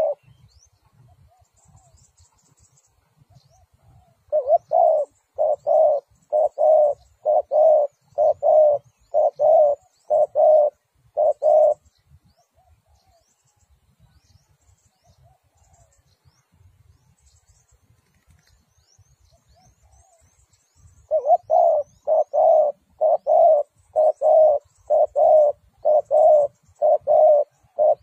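Spotted dove cooing: a run of about a dozen short, evenly spaced coos about four seconds in, then quiet, then another run starting about two-thirds of the way through.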